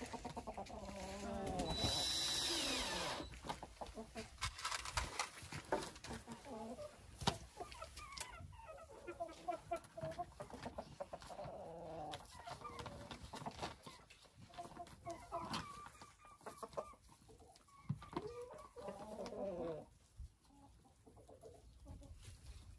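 Chickens clucking, many short calls throughout, with scattered sharp clicks and knocks.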